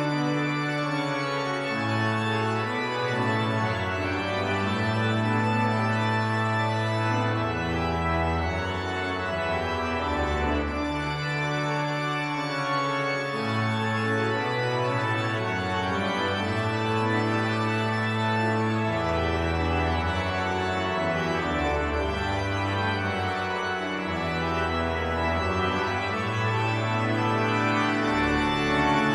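Church organ playing loud, full chords on the manuals over long held pedal bass notes that change every one to three seconds.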